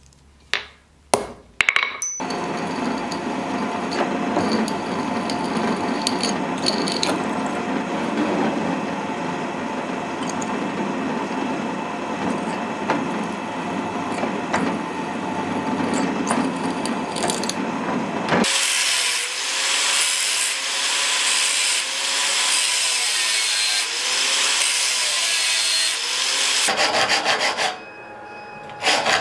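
A few sharp hammer taps on a centre punch marking a metal strip. Then a drill press runs, drilling through the strip clamped in a machine vise, for about sixteen seconds. It changes abruptly to the rasping strokes of a hand frame saw cutting metal held in a bench vise, with a brief pause near the end.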